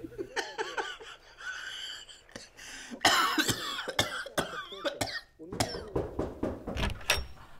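A person coughing repeatedly, a fit of coughs that starts about three seconds in.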